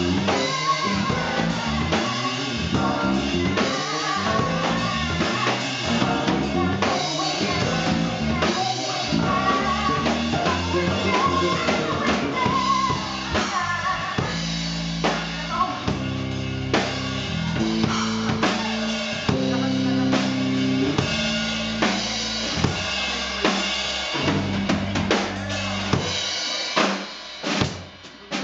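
Live soul band playing: drum kit with kick, snare and rimshots, electric bass, and keyboard, with a woman singing wordless lines over the first half. Near the end the band drops out, leaving sparse, separate drum hits.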